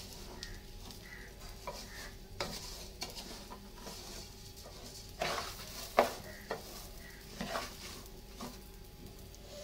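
Raw polao rice being dry-fried in oil and ghee in a metal pot: a spatula turns and scrapes the grains with a soft rustle over a faint sizzle, with a few louder scrapes against the pot a little past the middle. This is the toasting stage, before the water goes in.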